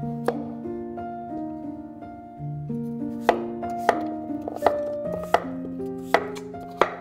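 Kitchen knife chopping peeled raw potatoes on a wooden cutting board: sharp knocks of the blade hitting the board, one near the start and six more at a steady pace through the second half. Soft background music with held notes plays underneath.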